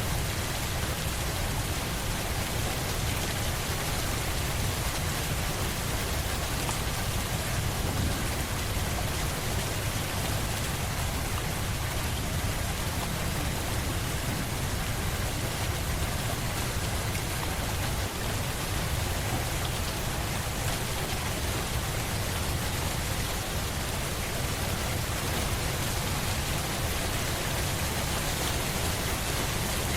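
Steady rain falling on a surface, an even unbroken hiss with a low rumble underneath.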